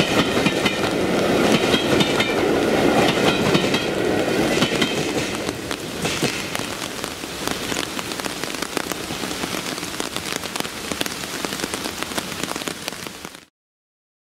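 Steady rain falling, while the rumble of a passing train's coaches on the track fades away over the first five seconds or so. The sound cuts off suddenly near the end.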